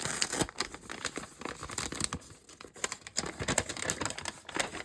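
Craft packaging being handled and opened, with irregular crinkling and rustling and some tearing.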